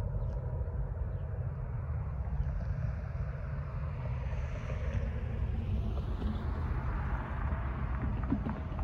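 Wind buffeting the microphone as a steady low rumble, with a passing car's tyre and engine noise swelling to its loudest about seven seconds in and then easing.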